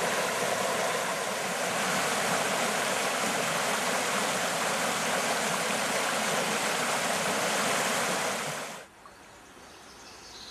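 Small forest river rushing over a low cascade of stones, a steady loud rush of water that cuts off abruptly near the end, leaving only a quiet background.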